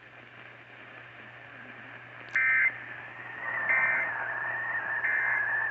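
Three short electronic alert beeps about a second and a half apart, the first the loudest. A steady, slightly wavering high tone runs under them from the first beep on, over a low electrical hum.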